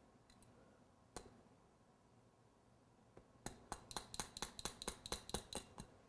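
A single light click, then a quick run of about a dozen light, ringing clicks and clinks, about five a second, from small hard objects being handled.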